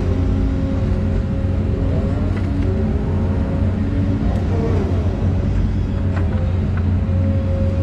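Volvo EC220E excavator's diesel engine running steadily under working load, with a hydraulic whine that bends in pitch now and then as the bucket scrapes up topsoil.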